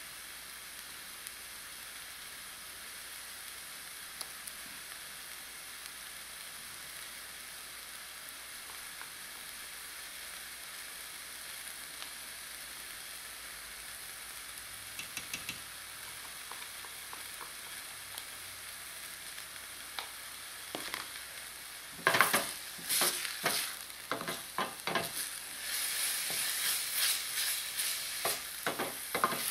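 Chopped onions sizzling in oil in a stainless steel pot with a steady hiss. About two thirds of the way in, a wooden spoon starts stirring and scraping against the pot in quick strokes, and the sizzling grows louder as red ají paste is mixed in.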